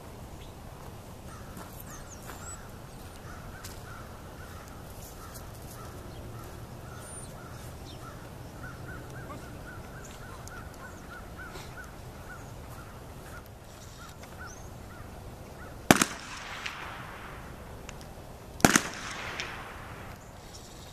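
Two gunshots, sharp cracks about three seconds apart, each followed by a short echo. Fired from a blank pistol while the dog heels, they are the gunfire test of the working-dog obedience routine, checking that the dog stays steady under shots.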